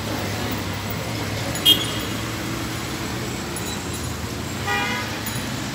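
Steady traffic and machinery noise with a low hum at a night construction site. A sharp metallic clink about a second and a half in is the loudest sound, and a short high-pitched toot sounds about five seconds in.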